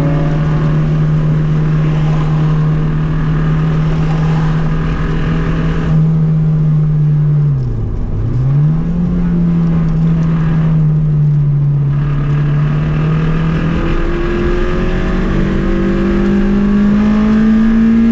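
2002 Acura RSX Type-S's 2.0-litre four-cylinder engine running hard at steady revs. About eight seconds in the pitch drops sharply and comes straight back up. In the last few seconds the revs climb steadily as the car accelerates.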